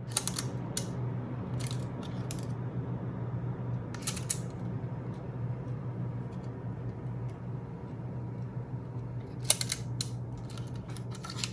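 Sharp clicks and taps from a small cassette player and its parts being handled on a bench, heard over a steady low hum.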